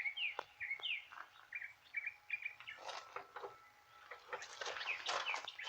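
Small birds chirping: short, repeated rising-and-falling chirps, with bursts of rustling noise about three seconds in and again near the end.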